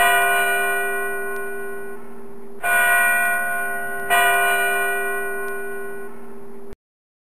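A church bell tolling: three strokes, the first as it starts, then about two and a half seconds later and again a second and a half after that, each ringing on and fading slowly. The ringing cuts off suddenly near the end.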